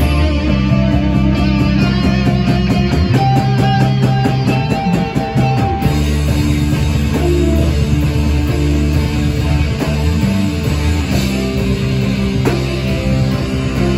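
Rock band playing live: electric guitars and bass guitar over a drum kit. The drums keep a fast, even cymbal pattern that changes about six seconds in.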